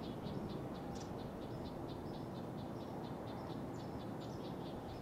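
Outdoor nature ambience: a steady run of short, high chirping animal calls, several a second, over a low steady background noise.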